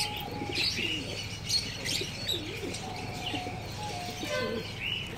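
White fantail pigeons cooing in low, wavering calls, with short high chirps scattered through.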